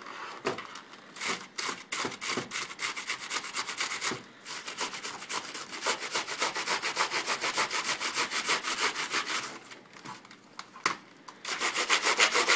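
A long-bristled brush scrubs quickly back and forth between computer keyboard keys, several strokes a second, sweeping out the dirt lodged under them. The brushing stops for a moment near the end, with a single sharp click, then starts again.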